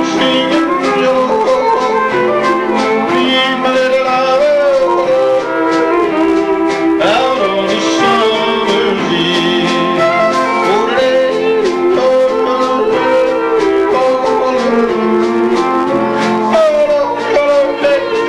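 A live country band playing a song, with acoustic guitar, electric guitar and fiddle.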